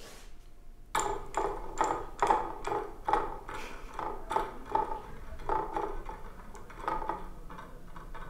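A 'Decision Maker' desk toy working out an answer: about a dozen sharp clicks, each with a short ring. They start about a second in, come roughly two a second at first, then space out and slow toward the end.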